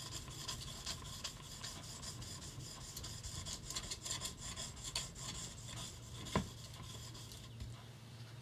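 Yanagiba steel blade laid flat and stroked back and forth on a whetstone: a faint, rapid scraping and rubbing, with a single sharp click about six seconds in. The strokes die away near the end as the knife is lifted off the stone.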